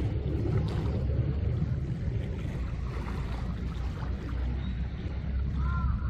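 Steady low rumble of harbour ambience, with a gull's arched, rising-and-falling call near the end.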